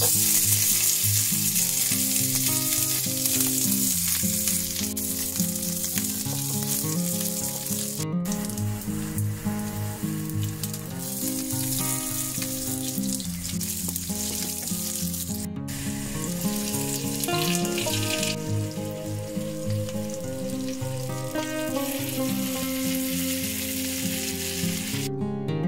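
Dried buffalo meat sizzling as it fries in hot oil in a pan, with ginger, garlic and then shredded vegetables going in. Background music plays underneath, and the sound cuts out briefly twice.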